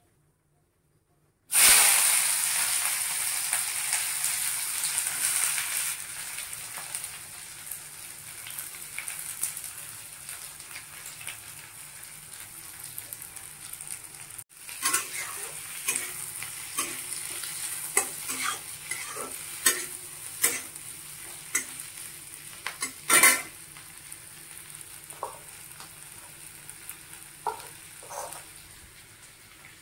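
Food going into hot oil in a pan: a sudden loud sizzle starts about a second and a half in and slowly dies down. Later the frying goes on more quietly while a spatula knocks and scrapes against the pan every second or so.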